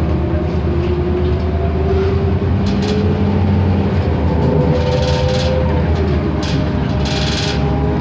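Inside a NABI 31 LFW transit bus under way: its Cummins Westport ISL G natural-gas engine and Allison B300R automatic transmission give a steady low hum with a whine that slowly rises in pitch. Two short bursts of hiss come about five and seven seconds in.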